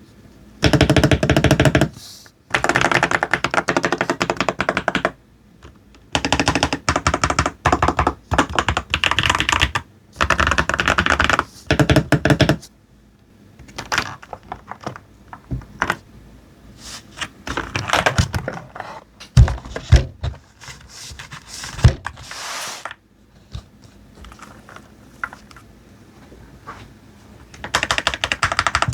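Typing on a Royal Kludge RK98 mechanical keyboard with Gateron Quinn tactile switches. Fast runs of rapid keystrokes come first, then slower, separate key presses with a few heavier thuds in the middle. Fast typing starts again near the end.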